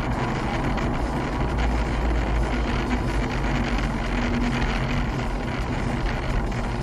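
Steady road and engine noise heard from inside a moving car: a low rumble with tyre hiss.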